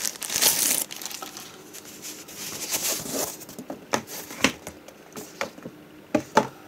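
Clear plastic bag crinkling loudly as a keyboard dock is slid out of it, dying down after about a second. A few light knocks follow later as the keyboard is handled.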